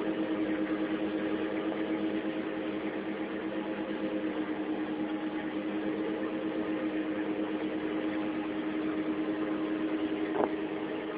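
A sailing boat's engine running at a steady drone. A single short knock about ten seconds in.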